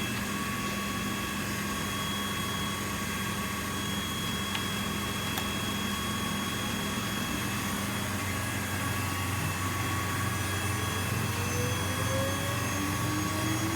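CNC wood-carving router running steadily, its spindle giving a constant hum with a high whine above it. Near the end, faint tones rise in pitch as the machine moves.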